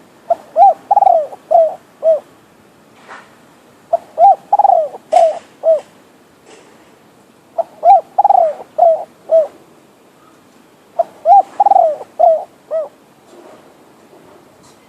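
Captive decoy spotted dove cooing: four calling phrases a few seconds apart, each a quick run of five or six low coos.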